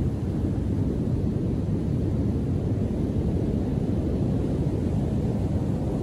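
Storm-churned ocean surf breaking offshore and washing up the sand, a steady low rumble.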